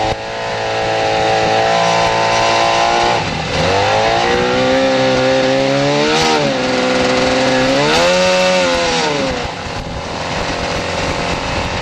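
Jet ski engine driving an aluminium dinghy at speed, over a steady rushing noise. The engine note falls about three seconds in, then rises and falls back twice as the throttle is worked, and dips again near the end.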